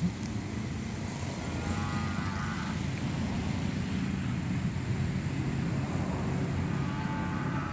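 Steady low rumble of an engine running, like a vehicle idling close by. A faint wavering, siren-like tone comes and goes above it, once about two seconds in and again near the end.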